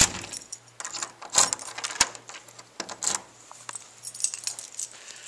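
Keys jangling, with sharp clicks and rattles of a door's knob lock and deadbolt being worked by hand.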